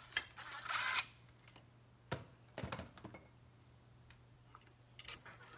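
A cordless driver spins briefly, backing out a screw from an electric motor's end cover, followed by a few sharp clicks and knocks of tools and metal parts on the workbench.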